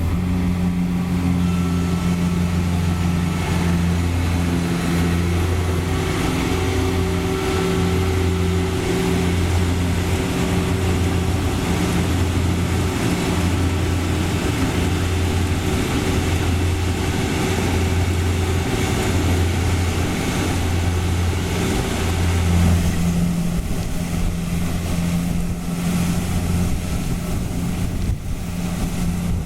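Rice combine harvester running steadily, its engine drone carrying a low hum that swells and fades about once a second.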